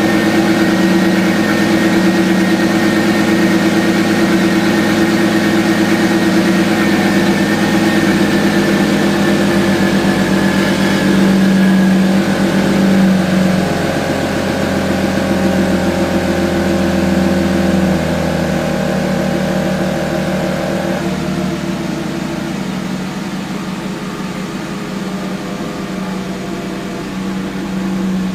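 Volkswagen W12 engine idling steadily, heard at its twin exhaust tips. It holds an even note with no big revs, and the sound grows somewhat quieter over the last third.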